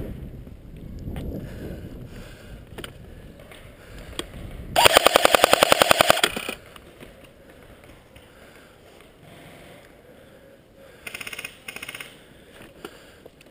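Airsoft rifle firing on full auto: a burst of rapid shots lasting about a second and a half, then two shorter, quieter bursts near the end.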